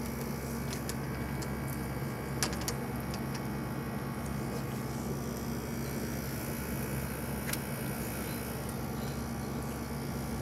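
Steady low hum, with a few faint clicks and rubs as the camera is handled against clothing.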